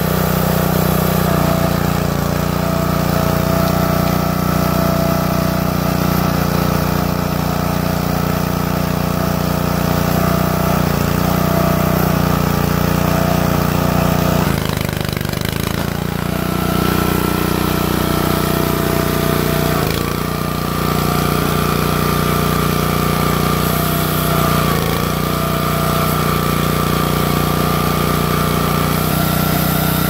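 Small gas engine of an Ariens 22-ton hydraulic log splitter running steadily, with a few brief dips in pitch.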